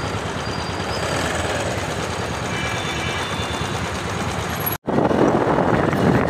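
Motorcycle engine and city traffic noise, heard from the back of a moving motorbike. The sound drops out for an instant about three-quarters of the way through, then comes back louder with wind buffeting the microphone.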